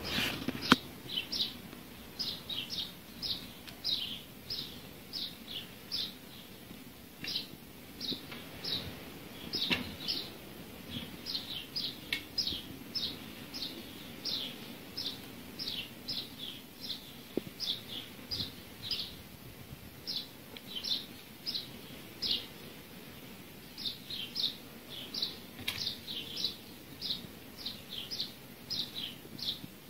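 A small bird chirping repeatedly: short, falling chirps, two or three a second in runs with brief gaps. There is a single sharp click about a second in.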